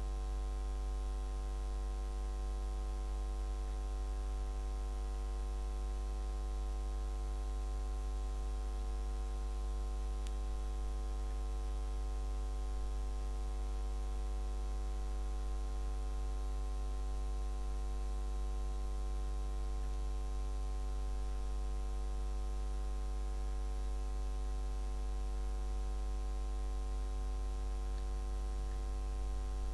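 Steady electrical mains hum from the recording chain, a low drone with a string of buzzy overtones above it.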